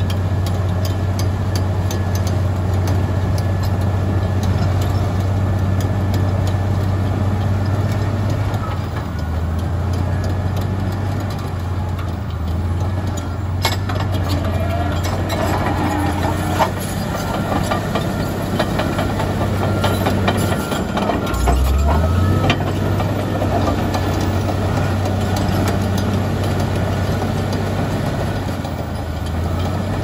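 Komatsu D85EX crawler bulldozer's diesel engine running while it works, a steady low drone whose pitch shifts as the load changes, with a quick rev-up about two-thirds of the way through.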